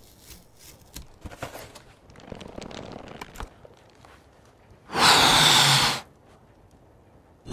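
Sound-effect foley: cardboard crackling and rustling as a taped box unfolds flat, then a loud rush of air lasting about a second, about five seconds in, as a red rubber balloon inflates.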